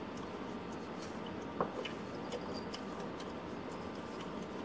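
Small ceramic ingredient dishes being handled over a stainless steel mixing bowl: a light clink about a second and a half in and a few faint ticks, over a steady low hiss.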